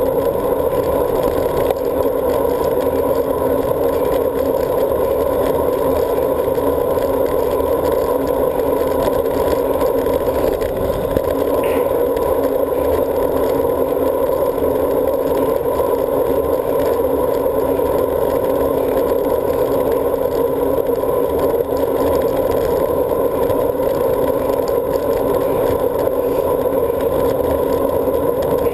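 Steady rush of wind and road buzz from a road bike rolling at speed along a paved bridge path, heard through a handlebar-mounted GoPro camera.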